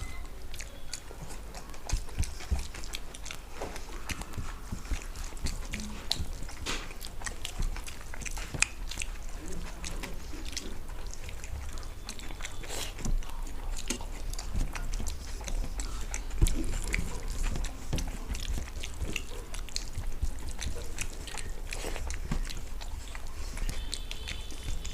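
Two people eating a meal of rice and fried fish: chewing and mouth smacking with many short clicks scattered throughout.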